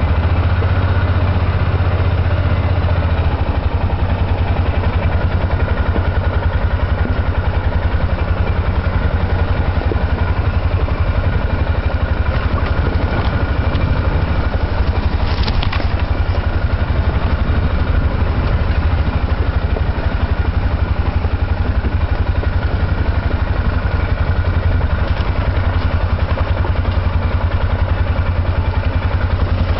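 ATV engine running steadily while riding a rough woodland trail, heard from on board. There is a brief sharp click about halfway through.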